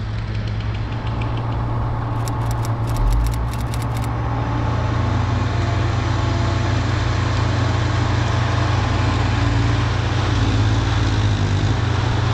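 A crane truck's engine running steadily with a low, even hum.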